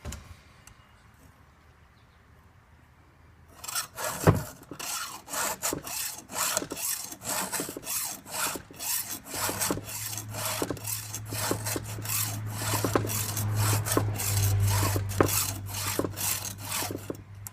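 Hand file rasping across the cutting teeth of a Craftsman chainsaw chain in quick repeated strokes, starting a few seconds in after a quiet pause. A low steady hum joins about halfway through.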